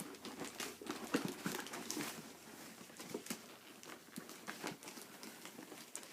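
Toy packaging being handled and worked open: irregular clicks, taps and crinkles of cardboard and plastic, close by.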